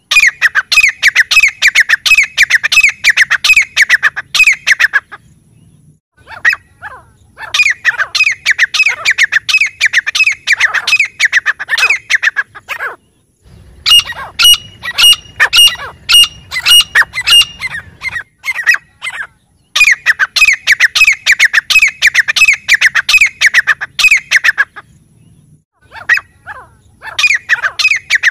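Grey francolin calling in loud bouts of rapid, sharp repeated notes. Each bout runs about five seconds, with short pauses between. In the middle bout the notes carry a higher, ringing tone.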